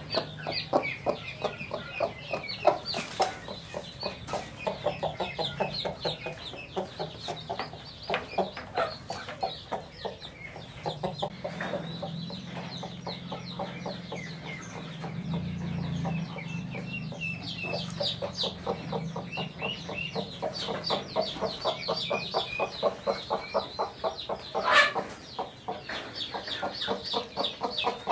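Chickens clucking in a fast, steady run of short clucks, with one sharper, louder sound about three seconds before the end.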